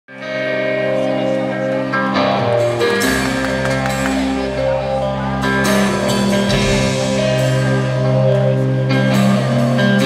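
Live country band playing a song's instrumental opening: guitar chords over held notes, with several sharp hits along the way. The band is heard through the PA from the audience seats.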